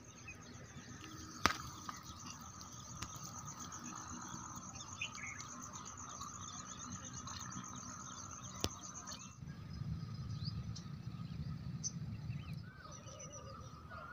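Birds chirping, with a steady high-pitched trill that stops abruptly about nine seconds in. Two sharp clicks fall about a second and a half in and near the middle, and a low rumble follows for a few seconds.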